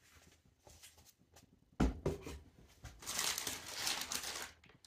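A single knock on the cardboard box, then white tissue paper rustling and crinkling as a hand rummages through the packing around the item.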